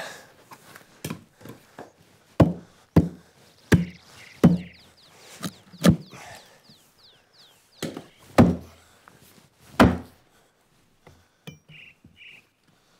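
Hatchet striking a fir log, knocking out chainsaw-cut wooden blocks to hollow it: a series of sharp, irregularly spaced wooden knocks, the loudest about eight and a half and ten seconds in.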